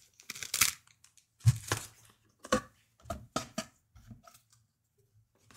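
Packaging being handled: a plastic bag holding a cable crinkling and a cardboard box being opened, in short irregular rustles with a soft bump about one and a half seconds in.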